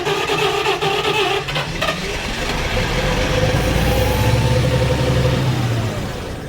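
Caterpillar 3306 natural-gas engine being started: it cranks and fires, a rising-then-falling whine and a low rumble build up for a few seconds, then the engine winds down and fades near the end instead of settling into a run, which the mechanic puts down to the engine being heat soaked.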